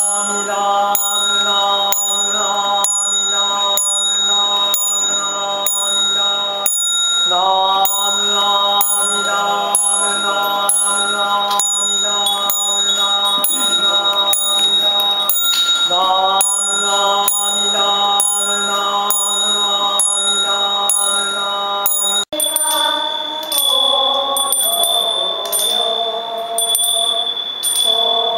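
Goeika, Japanese Buddhist hymn singing by a small group, in long drawn-out held notes over handbells rung in a steady beat of about two strikes a second. About 22 seconds in it breaks off abruptly and another passage of the singing and bells begins.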